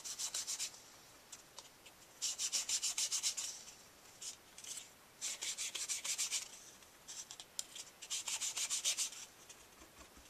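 A sponge loaded with ink rubbed in quick short strokes along the edges of a die-cut cardstock fence: a dry, scratchy scrubbing in several bursts of rapid strokes, each a second or so long, with short pauses between.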